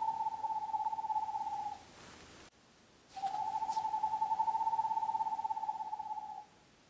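An owl giving two long trills at one steady pitch, each lasting about three seconds. The first trill ends near two seconds in and the second starts about a second later.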